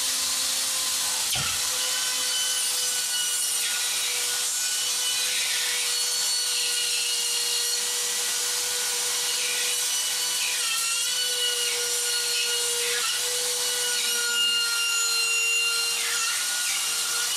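Handheld spiral saw (RotoZip-type rotary cutout tool) cutting through drywall to open an electrical box: a steady high-pitched whine over a grinding noise, the pitch sagging slightly a couple of times as the bit bites.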